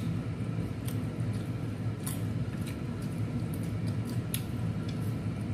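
Eating sounds from people eating with their fingers: chewing and wet mouth smacks, with a few short, sharp clicks over a steady low hum.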